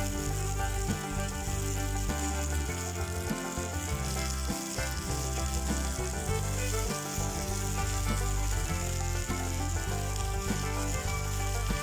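Food sizzling and frying steadily in a cast-iron skillet over a wood fire, with background music underneath.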